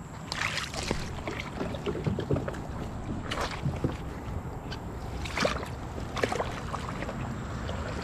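Feet wading in ankle-deep river water beside a plastic pedal kayak: irregular splashes and sloshing, with a few short knocks.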